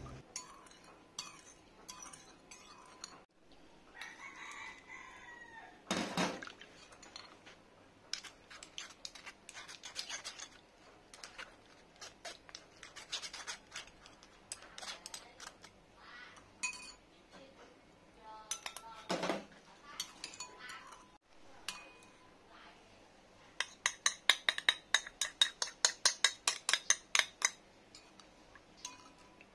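Metal spoon clinking and scraping against a ceramic bowl while stirring tamarind fish-sauce dip and pressing tamarind pulp through a wire-mesh strainer, with a fast run of clinks, about five a second, near the end.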